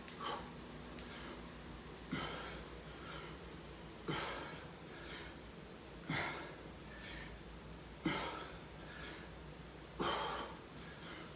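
A man's forceful exhales during push-ups, one sharp breath out with each repetition about every two seconds, six in all.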